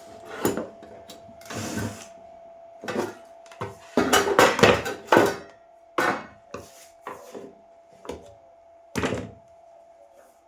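Irregular handling clatter and knocks, about six bursts with the loudest a little after four seconds in, over a faint steady hum.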